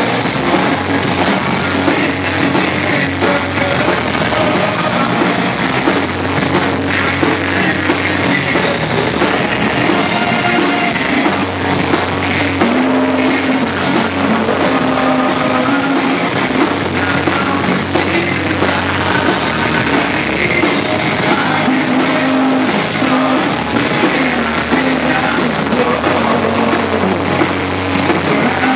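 Live rock band playing a song loudly: drum kit, guitars and a singer.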